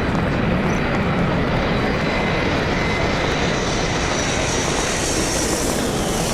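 Aircraft engines running at an airport, a steady rushing noise with a high whine that grows louder and rises from about halfway through.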